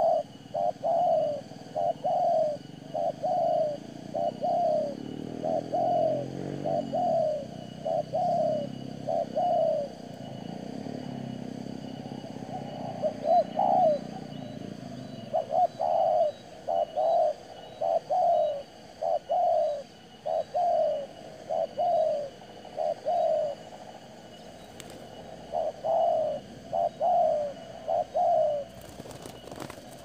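Spotted doves cooing: short notes, each dropping slightly in pitch, repeated in runs of three or four with brief pauses between runs. A few sharp flaps of wings near the end.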